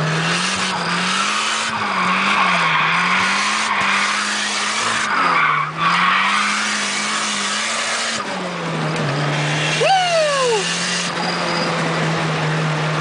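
Turbocharged Nissan 240SX four-cylinder KA engine heard from inside the cabin, its revs rising and falling over and over through a drift, with tyre squeal. About ten seconds in, a brief falling squeal.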